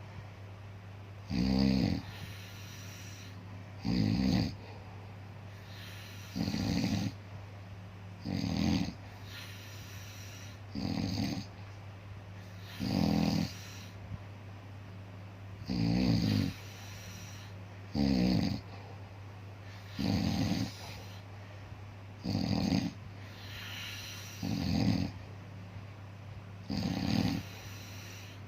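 Snoring in slow, even snores, about one every two and a half seconds, each a short rattling snore under a second long. A steady low hum runs underneath.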